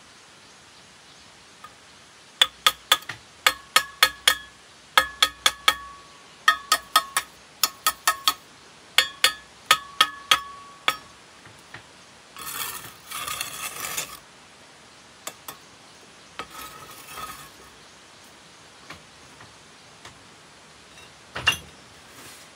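Hard objects clinking with a short ringing tone, about three strikes a second for some eight seconds, like a utensil against dishware. This is followed by two short stretches of scraping or rattling and a single knock near the end.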